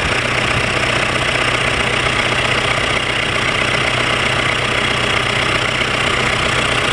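Freshly repaired diesel engine idling steadily on its test run.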